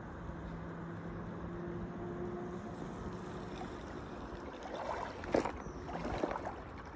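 Shallow river water flowing steadily, with a few splashes of water in the last two seconds.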